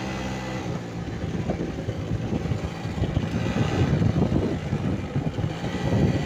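Strong wind buffeting the phone's microphone in uneven gusts, getting louder after the first few seconds. A steady hum is heard at first and fades out about a second in.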